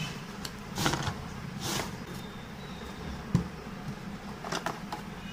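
Plastic wrapping rustling and cardboard scraping as a wrapped tripod is slid out of its box, two swishes in the first two seconds, then one sharp knock a little past three seconds and a few light clicks near the end.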